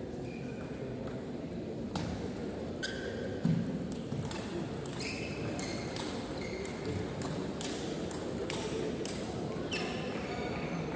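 Table tennis rally: the ball clicking back and forth off bats and table in quick irregular strikes from about two seconds in, with a heavier thump about three and a half seconds in, over a low hall murmur.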